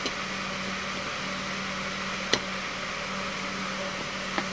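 Steady mechanical hum with hiss, and three short clicks, the loudest about halfway through, as a set-top box circuit board is handled.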